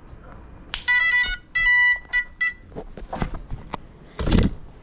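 A short electronic beep tune from a GEPRC Cinelog 35 FPV drone, several pitched beeps in quick succession about a second in, then two brief rushing bursts of noise as it gets going, the second louder.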